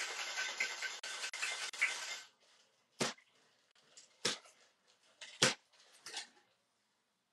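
Ice rattling fast in a metal cocktail shaker as it is shaken hard, stopping abruptly about two seconds in. Then a few separate sharp metallic clinks and knocks as the shaker is handled.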